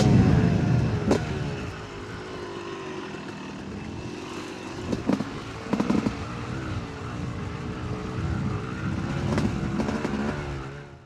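Yamaha YZ 250 two-stroke dirt bike engine running, echoing off the trees. It is loud at first, settles to a steadier, quieter note with a few sharp clicks, and fades out near the end.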